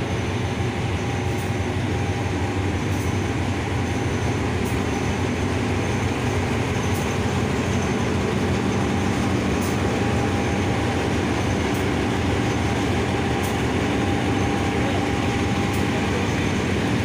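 Diesel locomotive No. 4545 running at a steady low drone as it pulls slowly out along the platform, its engine note strengthening slightly about halfway through. There are faint light clicks every second or two.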